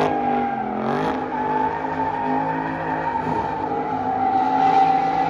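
A car's tyres squealing in one long steady screech over its running engine, the sound of a car drifting.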